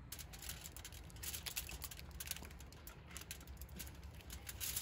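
Faint, irregular clicks and rustling, many short ticks in quick succession over a low steady background hum.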